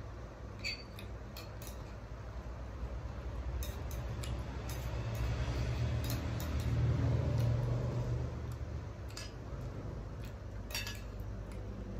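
Spoon and fork clinking and scraping against plates as two people eat, in short scattered clicks. Under them runs a steady low hum that grows louder for a few seconds around the middle.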